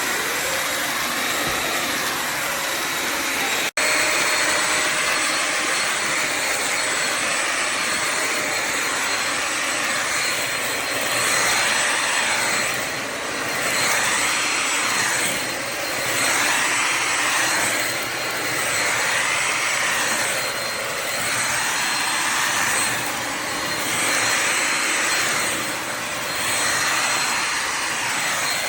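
Bissell Symphony Pet steam mop and vacuum running with a steady motor whine. It briefly cuts out about four seconds in. From about a third of the way in, it swells and fades every two to three seconds as it is worked over the floor.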